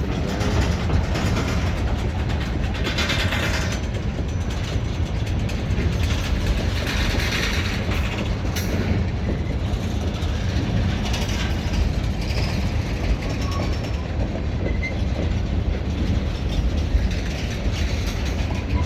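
Freight train of tank cars rolling steadily past, steel wheels rumbling and clacking on the rails.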